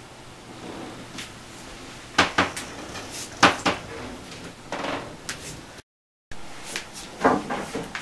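Several sharp knocks and clunks: a cluster from about two to five seconds in, then more about seven seconds in, with a half-second drop to dead silence just before six seconds.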